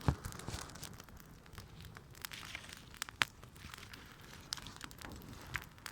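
Small wood campfire crackling, with scattered sharp pops, the loudest about three seconds in.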